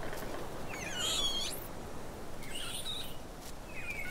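Young black-and-white snub-nosed monkey giving three high-pitched, wavering cries, the separation calls of an infant left behind by its group.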